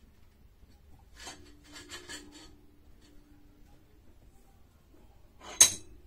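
Metal fittings and tools handled while assembling horns on a stand: a short stretch of light rattling clicks with a faint low ring, then one sharp metallic clink near the end that rings briefly.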